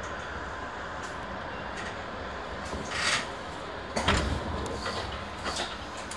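Stationary electric commuter train at a platform, its onboard equipment giving a steady hum and low rumble. About three seconds in there is a short hiss, and about a second later a sharp clunk with a low rumble, followed by a few lighter clicks.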